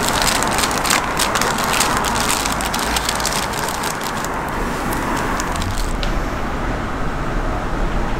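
Paper wrapper crinkling and rustling as it is folded by hand around a toast sandwich, the crinkling dying away about six seconds in. A steady background rumble runs underneath.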